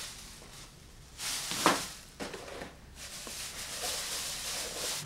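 Kitchen handling noises: a fork clinking and scraping food in a glass dish, then a plastic bag rustling from about three seconds in.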